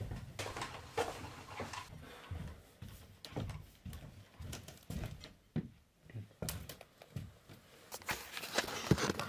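Footsteps and scattered knocks and rustles of a person walking across a cluttered room. Denser, louder knocks and rustling near the end as the camera is handled.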